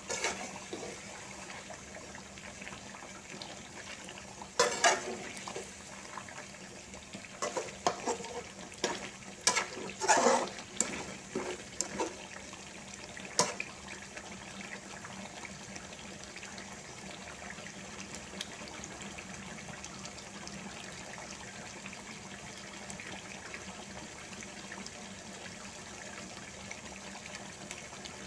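Chicken in sambal sauce simmering and bubbling in a metal pan. In the first half, a metal spatula scrapes and knocks against the pan several times; after that, only the steady simmer is left.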